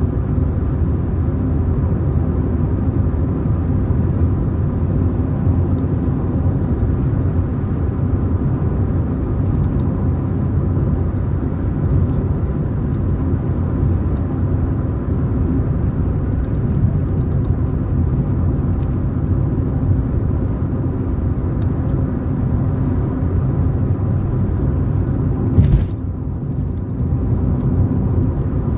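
Steady low rumble of a car driving along the road, engine and tyre noise together, with one short sharp knock near the end followed by a brief dip in the noise.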